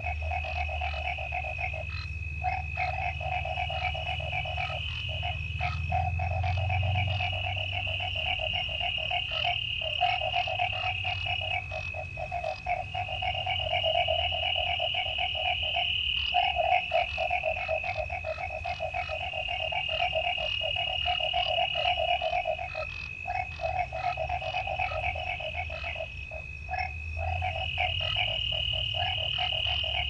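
Night chorus of frogs calling in a fast pulsing trill that breaks off briefly every few seconds. Over it runs a steady high insect trill, with crickets trilling in recurring stretches of a couple of seconds each. A low rumble sits underneath.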